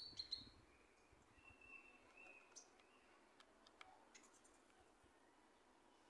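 Near silence: quiet open-air ambience with a few faint high chirps in the first couple of seconds and scattered light clicks.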